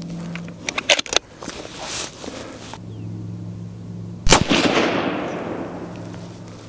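A single suppressed rifle shot from a Sig Cross in .308 Winchester fitted with a Liberty Infiniti X suppressor, about four seconds in. It is a sharp crack followed by an echo that fades away over a couple of seconds. A few light clicks come about a second in.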